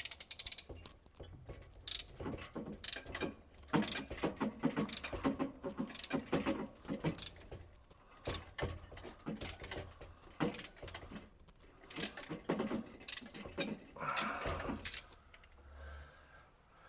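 Irregular metallic clicks and clatter of a hand tool and fittings as a Lokring coupling is pressed onto the refrigerator's copper refrigerant line, joining the new capillary without brazing.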